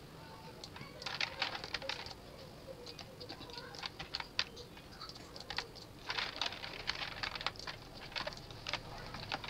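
Computer keyboard and mouse clicks, coming in quick clusters with short pauses between them.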